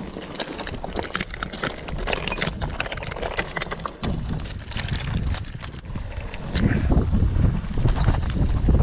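Mountain bike descending a rough trail: tyres running over stones, with many sharp clicks and knocks as the bike rattles, and wind buffeting the microphone, heavier in the last two seconds.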